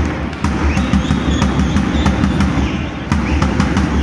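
Davul, the large Turkish bass drum, beaten in a steady march beat, its deep thuds echoing through a large hall.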